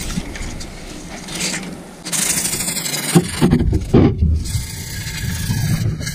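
A 320-grit abrasive cloth strip pulled back and forth around a steel bench-vise shaft, shoe-shine style, scrubbing the metal with a steady rasping hiss that starts about two seconds in. A few knocks of metal being handled come between about three and four seconds in.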